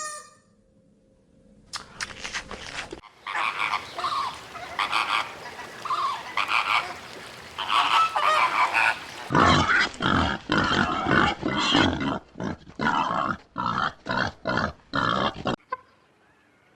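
Farm animals calling: short calls repeated in quick series, after a brief quiet start, stopping shortly before the end.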